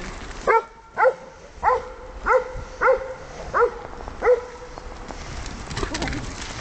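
A dog barking seven times in a row, about one bark every two-thirds of a second, then stopping.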